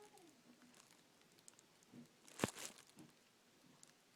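Quiet handling noise from small objects being moved about, with one sharp click about two and a half seconds in.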